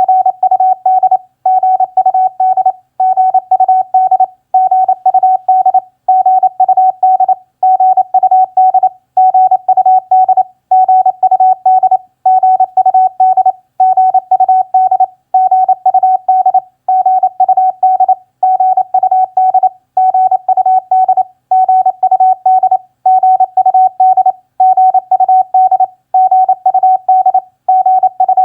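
Morse code practice tone: a single steady tone keyed on and off in rapid dots and dashes at 28 words per minute, sending common contact phrases such as HW CPY and GUD CPY. The code comes in groups with a short pause about every second and a half.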